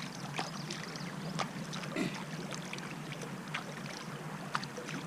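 Water sloshing and small irregular splashes as a flathead catfish is swished through shallow river water to rinse it clean.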